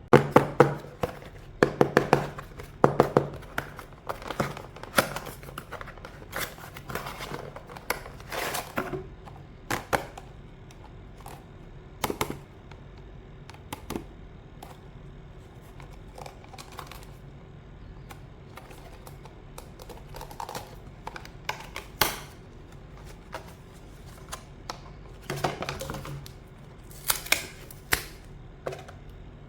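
Irregular plastic clicks and clacks of keycaps on a mechanical keyboard, being handled and pressed. They come in quick clusters at the start and again near the end, with single clicks every second or two in between.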